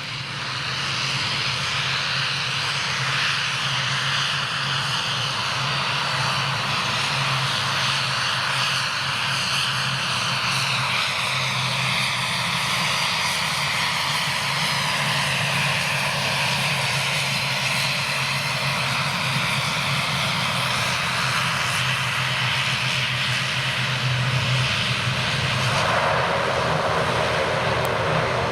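Airliner engines running loud and steady as the aircraft moves along the runway, a broad roar with bands that slowly sweep down in pitch, over a steady low hum.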